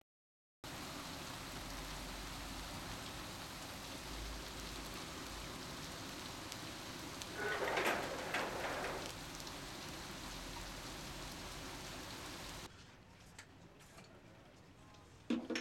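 Steady rain falling, with a louder rush lasting about two seconds near the middle. It cuts off abruptly near the end, leaving a quiet room with a few faint clicks.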